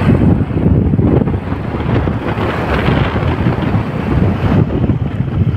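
Wind buffeting the microphone of a moving vehicle: a steady, loud low rumble with no clear engine note.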